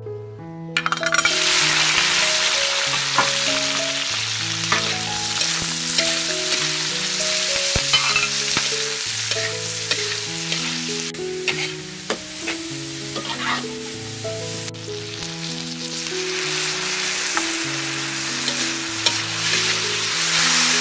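Sliced lemongrass, chillies and shallots hit hot oil in a steel wok with a sudden loud sizzle about a second in. They keep frying while a metal spatula stirs them, scraping and clicking against the wok. Soft background music plays underneath.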